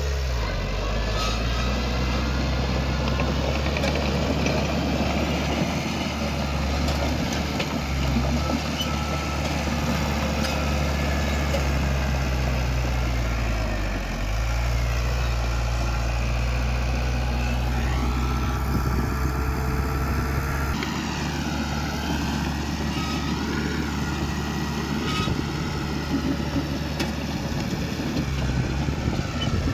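Heavy earthmoving machine's diesel engine running steadily, its pitch sagging briefly about halfway through as it comes under load, with a wavering higher whine over it in the second half.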